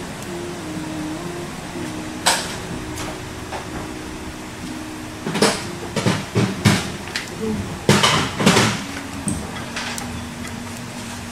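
Sharp knocks and clatter of hard objects being handled: one knock about two seconds in, then a busy run of knocks and clatters between about five and nine seconds in. A faint steady low hum lies under them.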